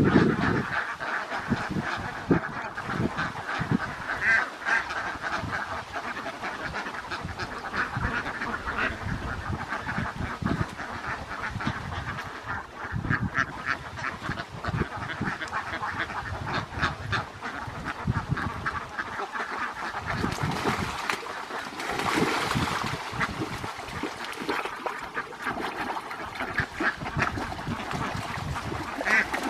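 A large flock of domestic ducks quacking continuously, many calls overlapping in a steady chatter.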